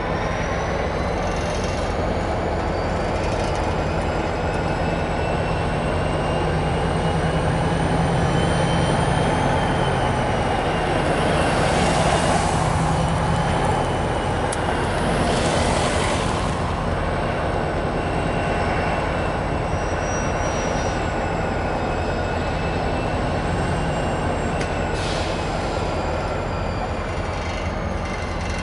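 Diesel freight locomotive engine running as the train moves slowly, with long high-pitched wheel squeal that slowly rises and falls in pitch.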